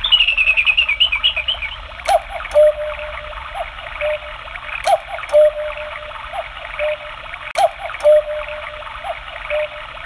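Electronic cuckoo call of a Black Forest quartz cuckoo clock sounding its hourly strike. Three two-note 'cu-ckoo' calls, the second note lower, each with a click and a fainter echo after it, play over a recorded backing of birdsong and running water.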